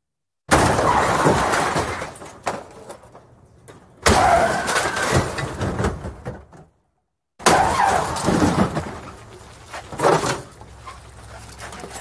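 Three car-crash sound effects, about three and a half seconds apart: each a sudden loud impact of metal and breaking glass that trails off into scattered debris. A further loud crunch comes about two and a half seconds after the third.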